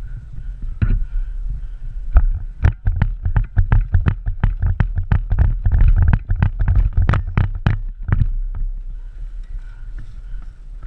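Airsoft gun firing a rapid string of single shots, about four a second, from about a second in until about eight seconds in, over a low rumble of wind on the microphone.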